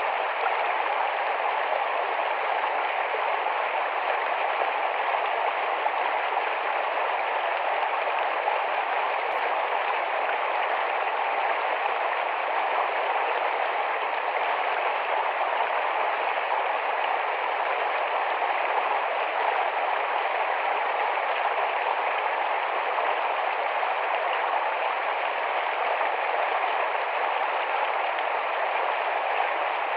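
Small rapid forest stream running steadily over stones, a continuous even rush of water.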